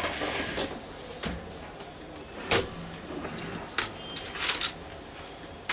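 A few scattered sharp clicks, about five in all, over faint hiss, from working a computer keyboard and mouse while copying and searching a net name in a schematic.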